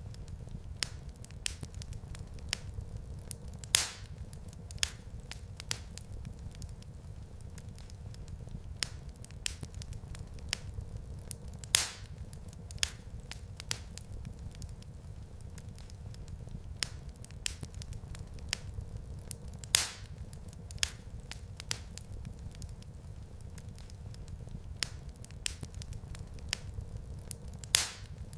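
Wood fire crackling in a fireplace: a steady low rumble of burning logs with frequent small snaps, and a louder pop about every eight seconds.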